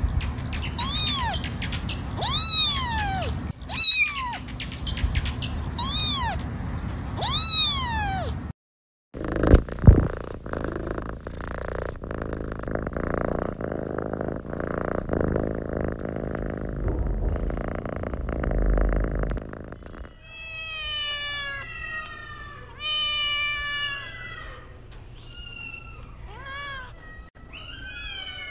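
Kittens meowing: a run of about six high, rising-and-falling meows spaced a little over a second apart, then after a break a stretch of rustling noise with one sharp knock, then several more meows falling in pitch near the end.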